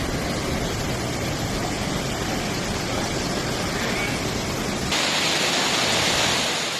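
Steady rushing noise of fast-flowing floodwater. About five seconds in it changes abruptly to a brighter, hissier rush.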